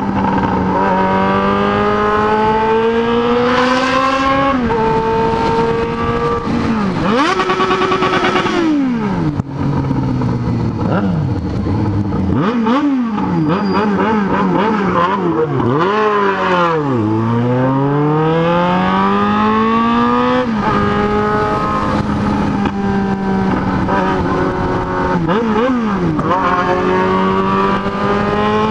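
Inline-four sport motorcycle engine revving loudly. Its pitch climbs slowly and drops suddenly several times, with a run of quick rev blips in the middle and a long fall and climb again.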